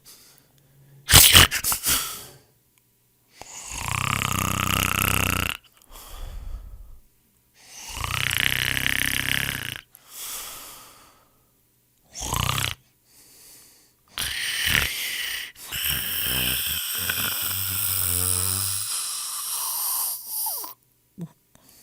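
A person snoring: short sharp snorts near the start, then long snoring breaths every few seconds with gaps of silence between, the longest near the end.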